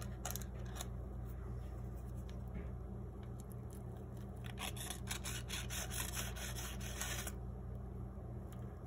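Faint cuts of a paring knife scoring soft bread dough: a few light scrapes at the start, then a quick run of small crackling scrapes from about four and a half to seven seconds in. A steady low hum runs underneath.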